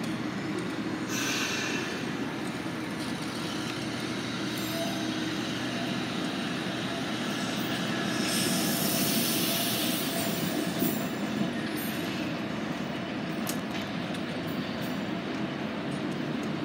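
Fukui Railway streetcar pulling away over curved track, its wheels rumbling on the rails. The wheels squeal in high, hissing bursts about a second in and again around eight to ten seconds in, with a few sharp clicks just after.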